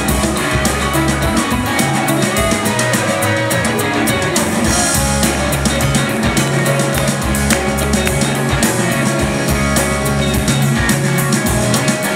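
Live rock band playing: electric guitars, electric bass and drum kit, with the bass notes and cymbals prominent.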